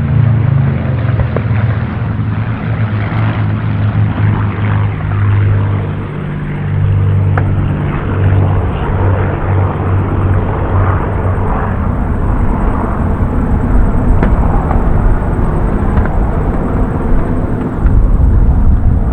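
Rolls-Royce V12 piston engines of three Supermarine Spitfires, two Merlins and a Griffon, running together in low-level formation flight as a loud, steady drone. It swells louder and deeper near the end.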